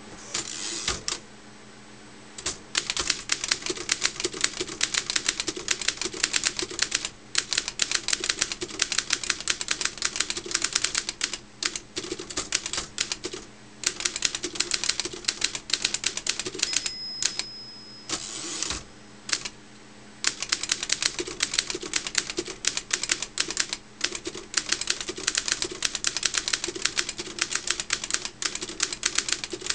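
Wide-carriage manual typewriter being typed on: rapid runs of sharp key and typebar clacks striking the platen, in bursts of several seconds with short pauses between them.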